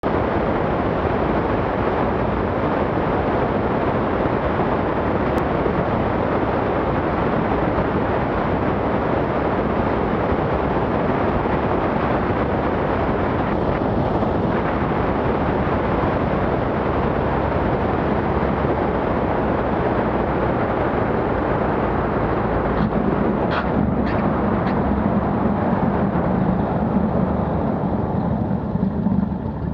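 Maule M7-235-C light airplane on a low approach and landing, its engine and propeller running steadily under heavy rushing wind noise on an outside-mounted camera. About three-quarters through, a few sharp knocks come as the wheels meet the runway, and a low engine hum then stands out as the airplane slows on its rollout.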